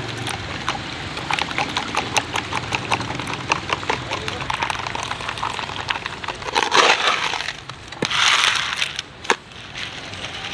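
Metal spoon stirring a drink in a plastic cup: quick, irregular clinks and taps against the cup wall. Past the middle, two louder rushing noises stand out, each lasting up to about a second.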